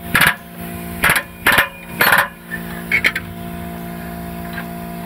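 Pneumatic air hammer driving a long punch against the ear of a socket on a rusted, seized oxygen sensor, in five short bursts of rapid blows over the first three seconds, the last one weaker, to shock the sensor loose. A steady hum runs underneath.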